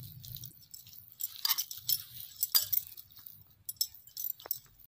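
Bangles on a wrist clinking in irregular short clicks as a hand kneads soft flour dough in a glass bowl.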